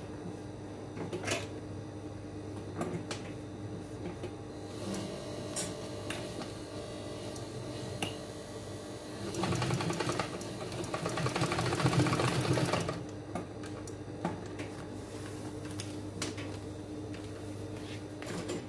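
Industrial sewing machine stitching in one run of about four seconds near the middle, a fast even rattle of the needle mechanism. Before and after it there is only a steady low hum and a few scattered clicks as the fabric is handled.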